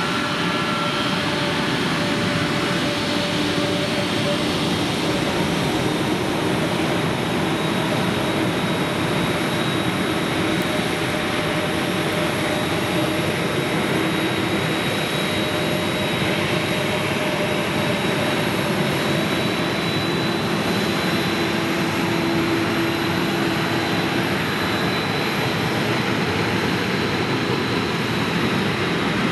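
Jet engines of an Airbus A321neo, Pratt & Whitney PW1100G geared turbofans, running at low power as the airliner taxis: a steady rushing noise with a faint high whine.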